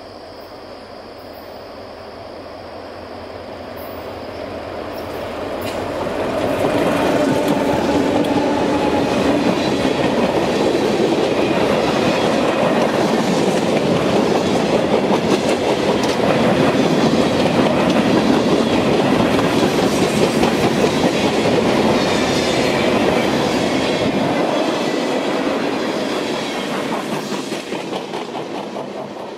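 Freight train led by an EMD diesel locomotive passing: the locomotive's engine grows louder and goes by about six seconds in. The freight cars then roll past with a steady clickety-clack of wheels over rail joints and some wheel squeal, fading out near the end as the train clears.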